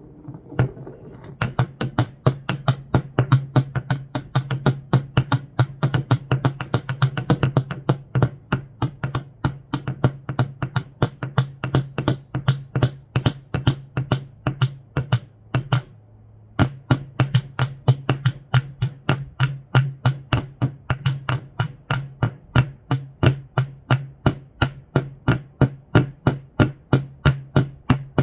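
Noise music: a fast, even train of sharp clicks or taps, about three a second, over a steady low hum. The clicks stop for about a second just past the middle, then resume.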